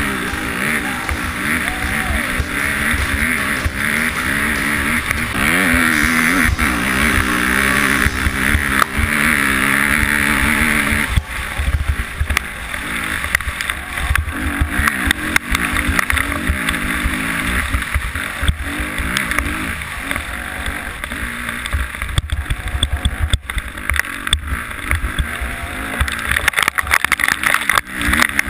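Dirt bike engine at racing speed, revs rising and falling again and again as the rider works the throttle over rough ground, with a low rumble of wind on the microphone and many short knocks from bumps, most of them in the second half.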